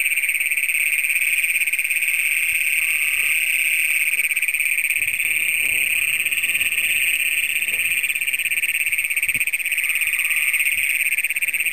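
A dense chorus of Great Plains toads, their long shrill trills overlapping into one steady, very loud wall of sound.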